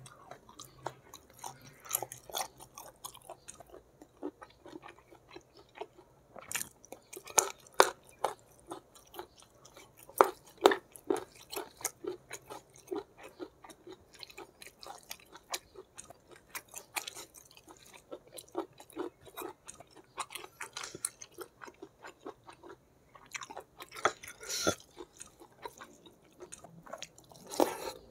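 Close-miked chewing of spicy squid and rice: an irregular run of clicks and smacks from the mouth.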